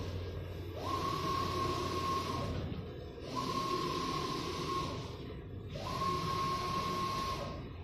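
1.8 m belt textile printer printing, its print-head carriage running back and forth with a steady whine and hiss. There are three passes, each about a second and a half long, with a short pause between them.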